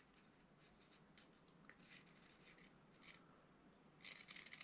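Carving knife paring very fine shavings off the edges of a lime wood blank to chamfer them: faint, short scraping cuts, louder near the end.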